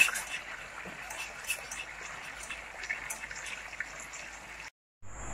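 White sauce in a saucepan being stirred: a steady soft hiss with many small, scattered wet clicks.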